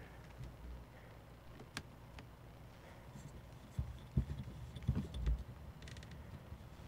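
Faint handling sounds of a mirrorless camera with a macro lens being held and adjusted: a light click about two seconds in, then a few soft low bumps and small clicks.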